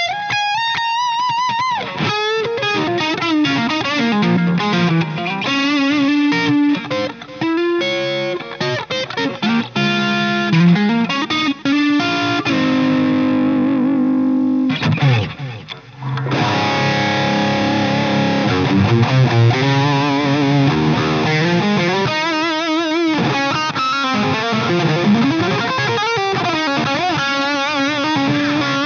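Electric guitar with P90 pickups played through a Dover DA-50 amplifier head: single-note lines and chords with string bends and vibrato. The playing drops off briefly about halfway through, then goes on.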